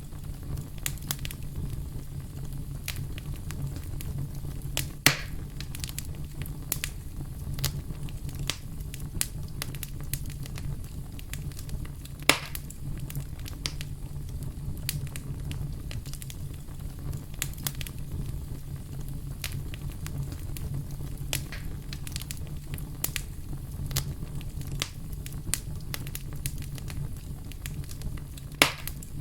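Fire burning in a fireplace, crackling with many small clicks over a low steady rumble. Three louder pops stand out: about five seconds in, about twelve seconds in, and near the end.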